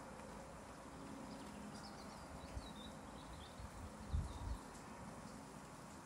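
Steady light rain falling on garden foliage, a soft even hiss, with a small bird chirping faintly through the first half. A few dull low thumps a little past halfway are the loudest sounds.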